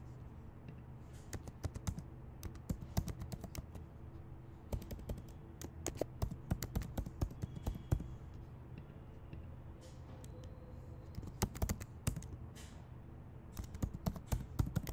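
Computer keyboard typing in bursts of quick key clicks with short pauses between them, over a low steady hum.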